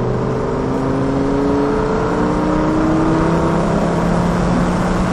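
Lamborghini Gallardo's V10 engine accelerating, heard from inside the cabin: its pitch climbs steadily for about three seconds, then holds, over steady road and wind noise.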